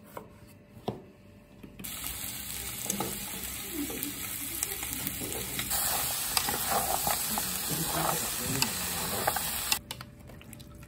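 A couple of knife chops on a wooden cutting board, then, from about two seconds in, vegetables and chicken sizzling as they are stir-fried in a large metal pot, with a spatula clicking and scraping against the pot. The sizzling grows louder partway through and cuts off suddenly shortly before the end.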